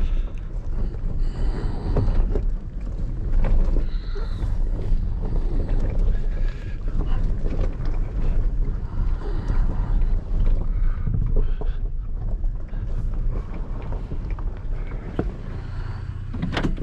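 Truck driving slowly down a steep, rough dirt road, heard from inside the cab: a steady low rumble with frequent knocks and rattles as it goes over bumps and rocks, and a few sharper clicks near the end.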